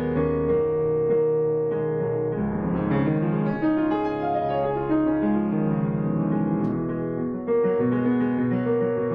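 Piano being played: a melody of held notes moving over lower chords.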